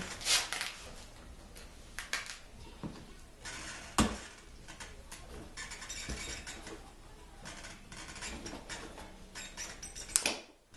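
Clicking, rattling handling of the fuel tank's connectors and lines by hand, with a sharp knock about four seconds in and another near the end.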